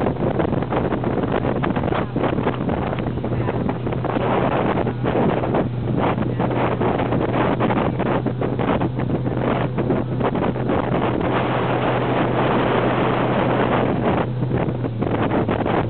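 Small motorboat's engine running at a steady speed with a constant low hum, while wind buffets the microphone in irregular gusts.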